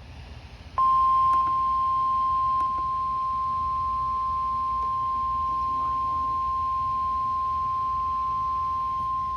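NOAA Weather Radio warning alarm tone: a single steady 1050 Hz beep that starts about a second in and holds for about nine seconds, the signal that a warning broadcast is about to follow.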